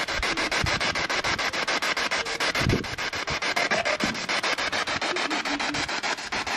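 PSB7 spirit box sweeping through radio stations: rapid, evenly chopped static with brief snatches of broadcast sound.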